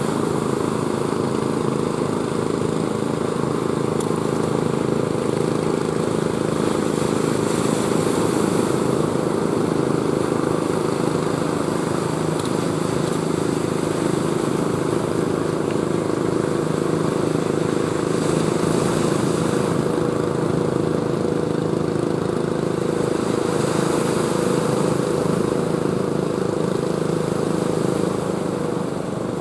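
Ocean surf, with waves breaking in swells every several seconds over a steady low rumble. Under it runs a constant motor-like drone.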